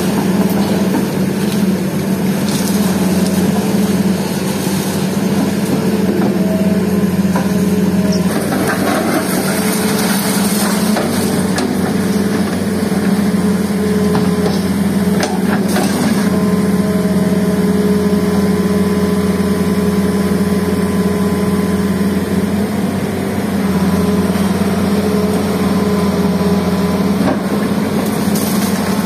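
Hitachi Zaxis hydraulic excavator's diesel engine running steadily as its pulverizer attachment crushes concrete walls, with scattered cracking and clatter of breaking concrete and falling rubble, most of it around the middle.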